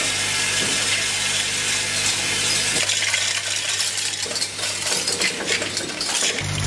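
Continuous dense rattling and clinking of small tablets jostling along the grooved stainless-steel vibratory feeder trays of a 16-channel tablet counting machine. A low steady machine hum underneath fades out about three seconds in.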